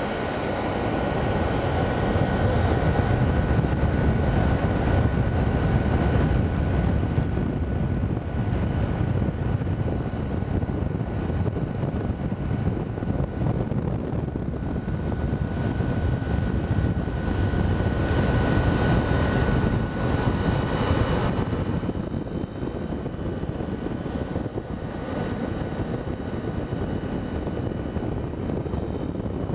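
Fedders 5000 BTU window air conditioner running: its fan blows a steady rush of air, with a thin steady whine over it.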